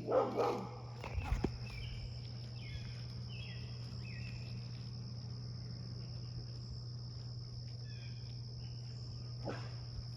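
Crickets trilling steadily, with a few short chirps. There is a short loud sound right at the start and a couple of sharp clicks about a second in.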